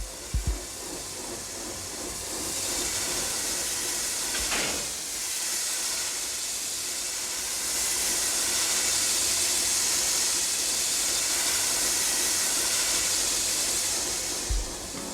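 A steady hiss that swells in about two seconds in and holds for roughly twelve seconds, with a few low thumps at the start and again near the end.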